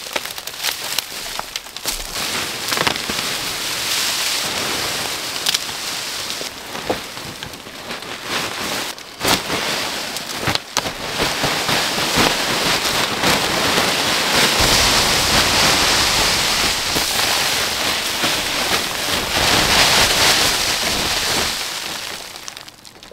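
Dry brushwood and leaf litter crackling and rustling as branches are pulled and dragged off a tarp-covered debris shelter, with scattered sharp snaps of twigs. It grows louder in the second half and dies down near the end.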